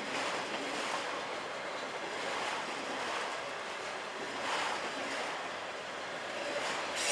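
Autorack freight cars rolling past at close range: a steady rushing noise of steel wheels on rail that swells and eases every second or two.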